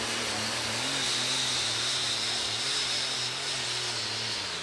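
A super stock pulling tractor's turbocharged diesel engine runs flat out under load as it drags the weight-transfer sled, its note wavering, with a strong high-pitched turbo hiss. Near the end the engine note falls and grows quieter as the tractor comes off the power at the end of the pull.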